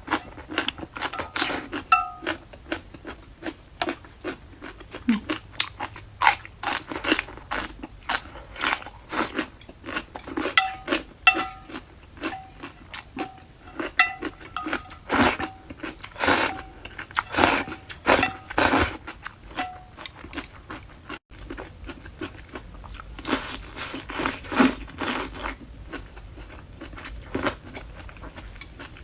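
Close-up chewing of crisp pickled vegetables: rapid, repeated crunches with short pauses between mouthfuls.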